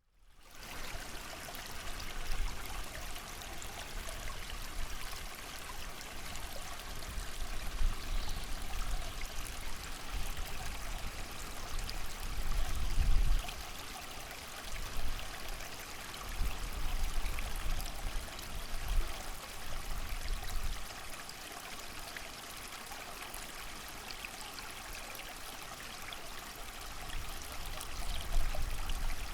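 Creek water running steadily over stones, mixed with rain and gusts of wind that swell and fade as a low rumble every few seconds. It fades in at the start.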